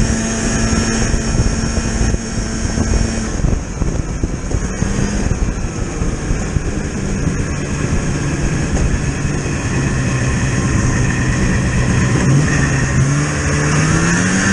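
A vehicle engine running at a steady speed, easing off about three seconds in, then rising in pitch near the end as it speeds up.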